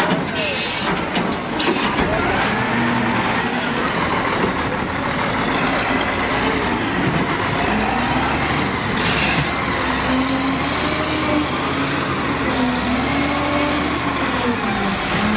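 Caterpillar 966H wheel loader's six-cylinder diesel engine running hard as the bucket pushes into rubble, with occasional sharp clatters of broken masonry.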